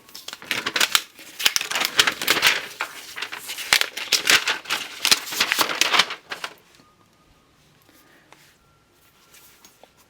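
Packaging wrap crinkling and tearing as it is handled and pulled off: a dense run of rustles and crackles for about six seconds, then only faint handling sounds.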